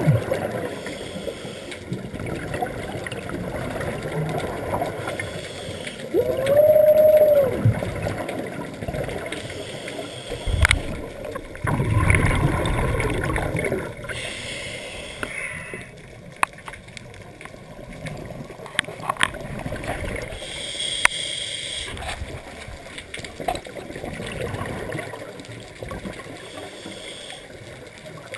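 Scuba diver's hummed 'whale call' made underwater through the regulator, used to attract a whale shark: one held tone, bending up as it starts and down as it ends, about six seconds in. Around it, regulator breathing and the gurgle of exhaled bubbles, with a few sharp clicks.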